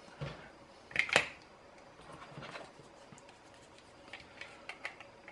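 AA batteries being fitted into the plastic battery holder of an automatic soap dispenser: two sharp clicks about a second in, then softer rubbing and a few light plastic ticks.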